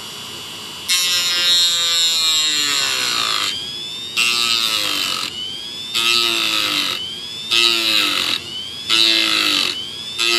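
Handheld rotary tool with a cut-off wheel cutting into a plywood former. The motor whines steadily for about a second, then cuts in about five short passes; on each one its pitch drops under the load and climbs back as the wheel lifts off.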